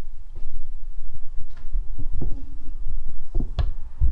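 Rumbling handling noise on the recording device's microphone, with several dull thumps and a sharper knock about three and a half seconds in, as the device is picked up and moved to a new view.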